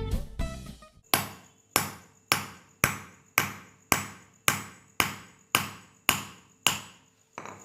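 Hammer blows, struck steadily a little under two a second with a short metallic ring, on a rod packing candle wax into a ceiling fan's bearing seat so the wax forces the ball bearing out. Another blow lands near the end. Background guitar music fades out in the first second.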